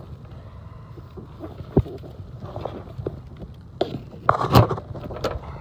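Scattered clicks and knocks of tools and parts being handled in an air conditioner's electrical panel, with a sharp click about two seconds in and a louder cluster of knocks near the end, over a low steady rumble.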